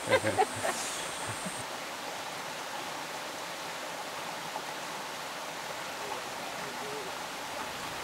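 Steady rush of running water from a forest stream. A few short voice sounds come in the first second or so.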